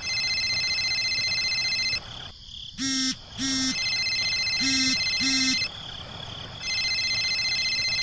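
Phone ringtone: a steady high electronic ring in three spells of about two seconds each. Two pairs of short, low hooting notes come near three and five seconds in.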